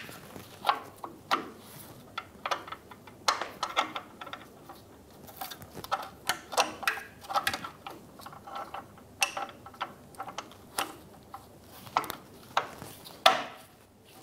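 Irregular light metal clicks and taps from a parking brake shoe adjuster being fitted between the drum-in-hat parking brake shoes and worked by hand.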